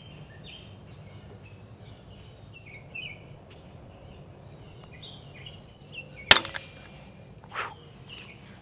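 A one-piece 3D-printed PETG carbon-fibre bar, twisted in a vise, snaps with a single sharp crack about six seconds in, followed by a fainter knock about a second later. Birds chirp throughout.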